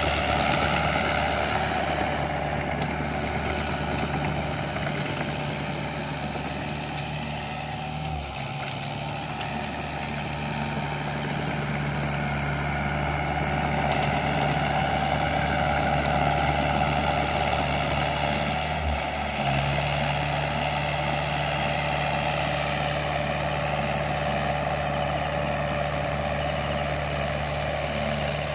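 Doosan DX55 mini excavator's Yanmar 4TNV four-cylinder diesel engine running steadily under load as its dozer blade pushes soil. The engine note changes briefly about eight seconds in and again a little past two-thirds through.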